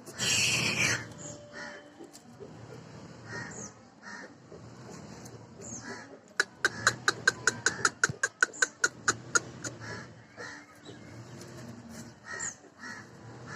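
Birds calling: a loud harsh call right at the start, scattered short calls, and in the middle a rapid run of sharp calls, about five a second for some three seconds.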